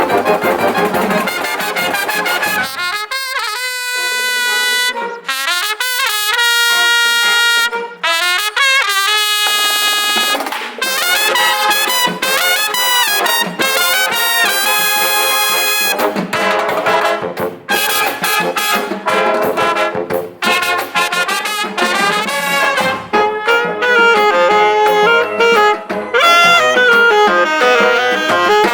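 A marching band's brass section playing live: trumpets and trombones in full ensemble, thinning to a few held notes for several seconds before the whole band comes back in with quick running lines.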